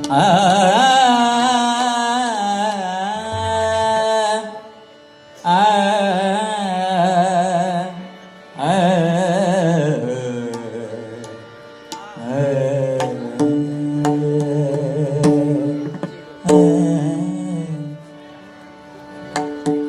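Opening of a Marathi bhajan: a wordless sung alaap in long, wavering, ornamented phrases with short breaks between them. A steady held note runs underneath later on, and a few sharp drum strokes come in the second half.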